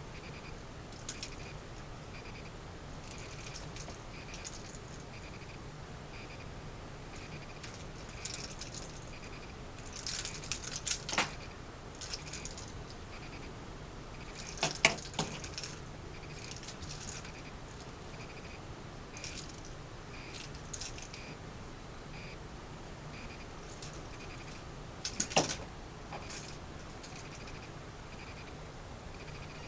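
A cat's rattle-ball toy jingling in irregular bursts as it is batted and rolls, with a few sharp knocks from the ball. The loudest rattling comes about ten seconds in.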